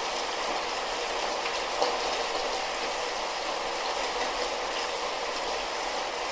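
Steady light rain falling, an even hiss with a few scattered drip ticks.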